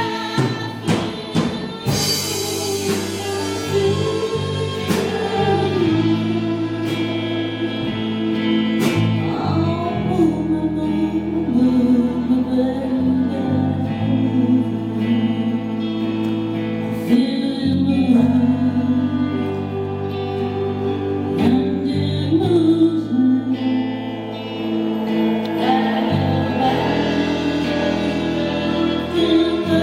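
A band playing a song, with a sung melody over sustained bass notes and instrumental backing. A few sharp strikes sound in the first seconds.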